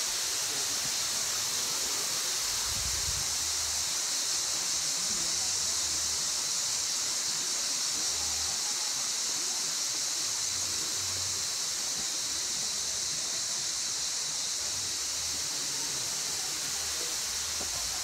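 Waterfall rushing steadily, a constant hiss of falling water with no let-up.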